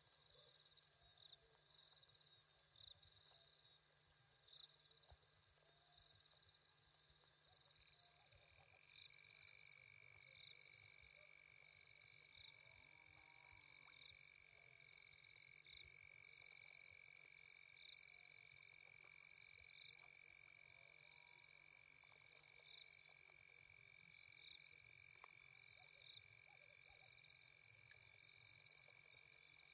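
Faint night chorus of insects: a high, fast-pulsing trill that runs on unbroken, joined about eight seconds in by a second, lower, steady trill.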